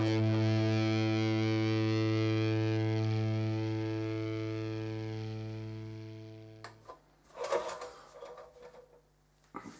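Background music: a single held, distorted chord that fades and cuts off about seven seconds in. It is followed by a few short knocks and clunks as the mechanical bathroom scale is stepped off and handled.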